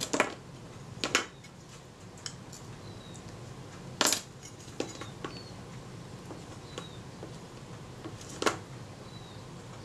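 Several light metallic clicks and taps from the small metal parts of a dismantled Kodak Retina IIIc camera being handled and set down on the bench, spaced a second or more apart; the loudest come at the start, about a second in and about four seconds in.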